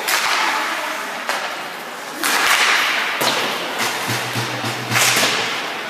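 Ice hockey play: several sharp cracks of sticks and puck striking, with rushing bursts of skates scraping and stopping on the ice between them. A brief low hum sounds about four seconds in.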